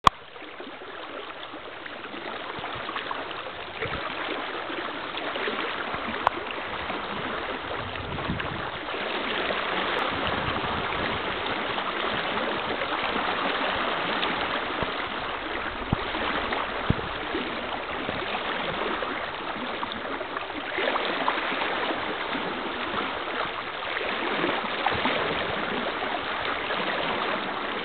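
River water flowing steadily, a continuous rushing with a gurgling texture.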